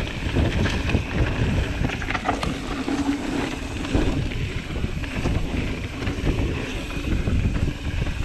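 Mountain bike riding fast down a dirt singletrack: wind buffeting the action-camera microphone over a steady rumble of tyres on dirt, with scattered knocks and rattles from the bike.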